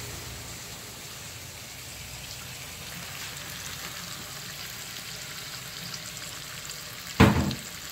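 Blended chilli, onion, garlic and ginger paste sizzling steadily in hot oil in a wok as it is poured in, with one short loud knock about seven seconds in.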